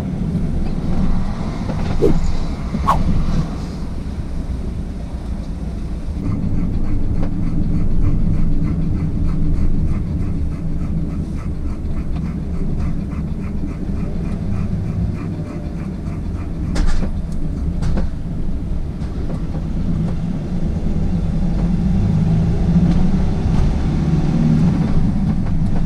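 Sprinter motorhome driving: a steady engine and road rumble, with a fast, even clatter from about six seconds in and a few sharp knocks along the way.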